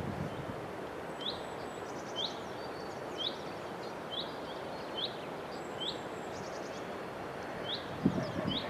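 Songbirds chirping, short rising calls about once a second with a few higher trills, over a steady hiss of outdoor background noise.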